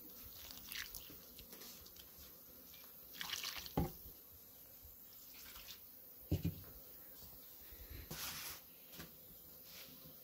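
Hands working flour and water into dough in an enamel tray: faint wet squelching and rustling, with water added from a jug. Two dull knocks stand out, about four and six seconds in.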